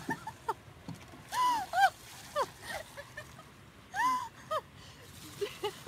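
German Shepherd yelping excitedly, a run of short high-pitched yelps that rise and fall in pitch, repeated every second or so, with some water splashing.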